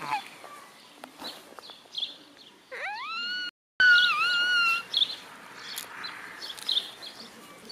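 High whistling squeals blown by a child through something cupped at his mouth: a short squeal sliding up in pitch about three seconds in, then a wavering held tone for about a second. Birds chirp faintly in the background.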